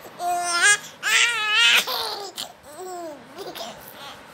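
A 10-month-old baby babbling and laughing in high-pitched vocal bursts. Two loud ones come in the first two seconds, then softer ones.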